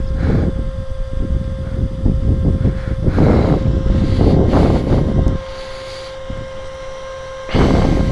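Motorcycle running under way, with heavy wind buffeting the microphone in gusts. The gusts are loudest from about three to five seconds in and again near the end, and the sound eases off somewhat after about five seconds.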